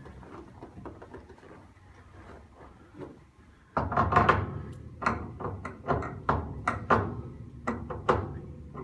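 Knocks and clunks from a chiropractic treatment table as a patient gets onto it and lies down. They start suddenly about four seconds in and repeat every half second or so, each with a short ring.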